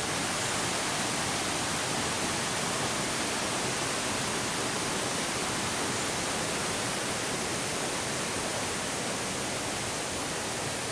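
Waterfall rushing: a steady, even roar of falling water that holds at one level throughout.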